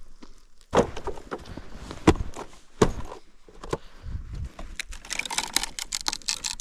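A few sharp knocks and clatters about a second apart, then a dense stretch of rustling and crackling near the end.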